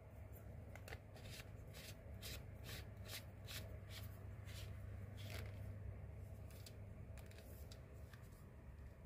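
Hands handling a plastic lightstick while fitting its battery cap: a string of short, faint clicks and rubs, about two a second, over a low steady hum.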